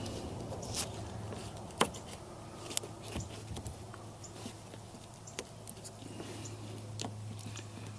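Painter's tape being handled and pressed onto the rear glass over a re-glued defroster wire tab: scattered light clicks and rustles, with two sharper clicks about two and three seconds in, over a steady low hum.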